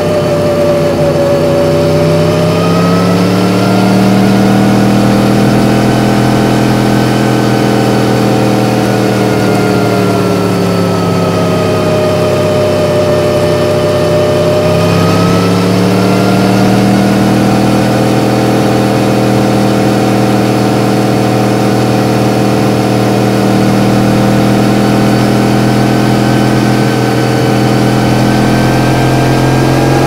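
Yamaha MT-10's crossplane inline-four engine running under way as the bike is ridden. The engine pitch climbs over the first few seconds, holds, eases down around the middle, then rises again and holds.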